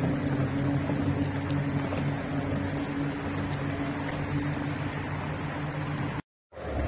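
Power boat engine running with a steady drone, cut off abruptly near the end.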